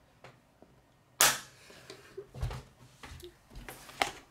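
Plastic K'nex pieces snapping together, with one loud sharp click about a second in, followed by a few quieter clicks and knocks of the plastic parts.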